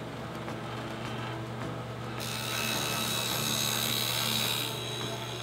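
Table saw with a stacked dado blade running with a steady hum, then cutting a shallow groove in a plywood drawer piece from about two seconds in until near the end.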